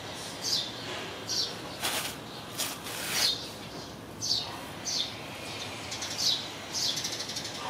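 A small bird chirping over and over, about one short call a second, each falling in pitch. A couple of sharp clicks come about two seconds in.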